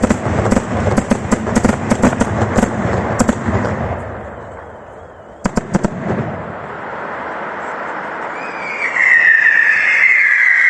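Daytime aerial fireworks: a rapid volley of sharp bangs for the first few seconds, dying away, then a short cluster of further bangs about halfway through. Near the end a loud high whistle slides slowly down in pitch.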